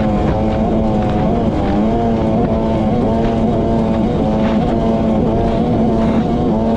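Sea-Doo personal watercraft engine running at steady cruising speed, its pitch wavering slightly up and down.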